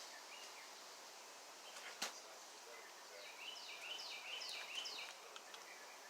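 Faint bird song: a short chirp near the start, then a quick run of repeated down-slurred notes in the second half. A single sharp click about two seconds in.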